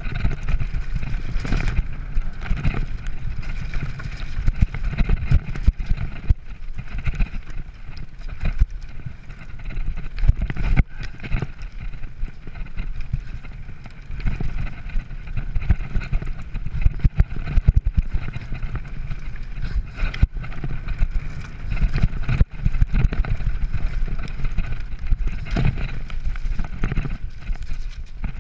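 Mountain bike riding fast down a wet, stony singletrack: tyres rolling over gravel and rocks while the bike rattles and clatters over bumps, with a steady low rumble of wind on the microphone.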